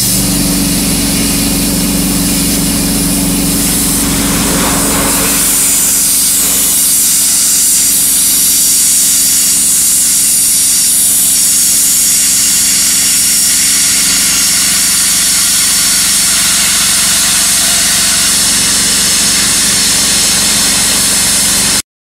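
PyroLance ultra-high-pressure water lance firing a jet through a wooden pallet: a loud, steady hiss over the steady hum of its pump engine, shifting in tone about five seconds in and cutting off abruptly near the end.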